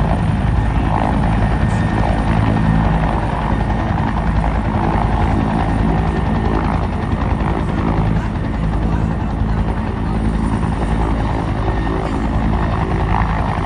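Bell 212 helicopter hovering close by, its two-blade main rotor beating steadily over turbine noise, at an even, loud level throughout.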